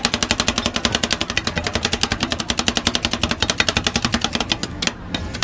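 Metal spatula rapidly chopping and tapping a soft green mixture on a round steel plate, about ten sharp clicks a second, thinning to a few scattered strikes near the end, over a steady low hum.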